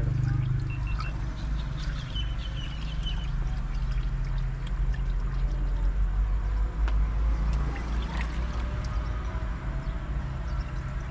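Water trickling as it is poured from a small steel cup, over a steady low rumble.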